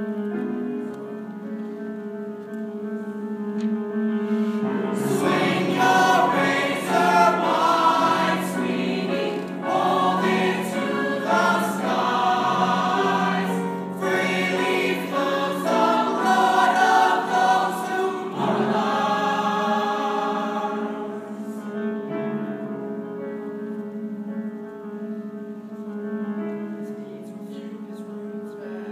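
A musical-theatre ensemble sings in chorus over sustained keyboard chords. The full chorus comes in about five seconds in and drops away after about twenty seconds, leaving mostly the held chords.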